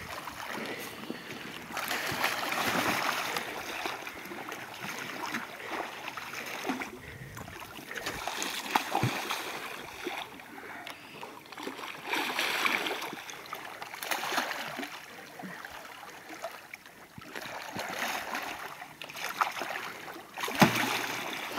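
A large hooked wels catfish thrashing at the water's surface close in, in uneven surges of splashing and sloshing, with a louder splash near the end.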